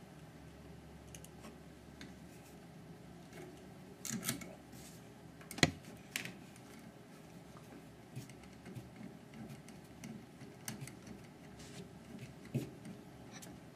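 Phillips screwdriver driving in the screws that hold new trolley wheels on a light mover: faint, scattered small clicks and ticks of metal parts. A sharper click comes a little before halfway through.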